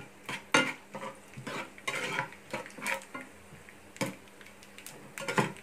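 Metal spoon stirring roasted peanuts in oil in a coated frying pan, an irregular run of clinks and scrapes against the pan.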